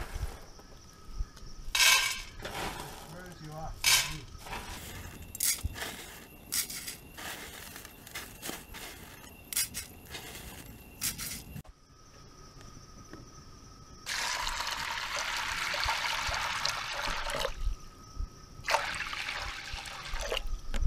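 Cookware clinking and knocking as it is handled on a wooden table, then water poured from a bottle over dried white beans in a cast-iron potjie: one long pour of about three and a half seconds, then a shorter second pour near the end.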